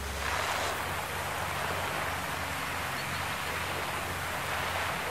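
Steady, even outdoor hiss with no distinct events; a low hum stops about half a second in.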